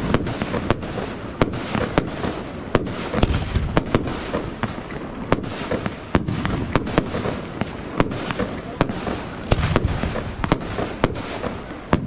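Fireworks display: aerial shells bursting in many sharp bangs, two or three a second at an irregular pace, over a continuous low rumble.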